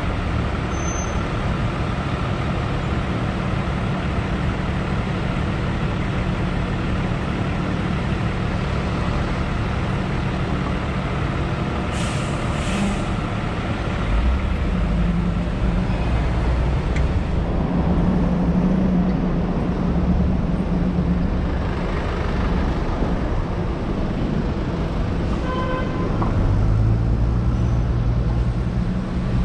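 City traffic noise heard while driving along a busy avenue: a steady engine and tyre rumble that grows heavier about halfway through, with a short hiss about twelve seconds in.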